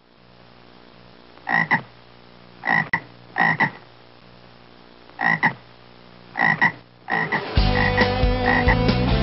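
A frog croaking in short double calls, five pairs at uneven gaps about a second apart over a faint low hum. Then guitar theme music comes in about seven and a half seconds in.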